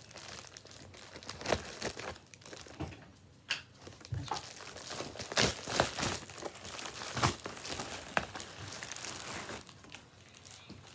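Plastic packaging crinkling and tearing as a mailed package is opened by hand, irregular rustling broken by sharp rips, loudest about halfway through.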